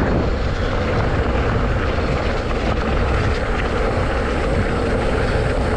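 Steady rushing wind on the microphone and rolling ride noise while travelling along a paved mountain road, with a deep rumble underneath.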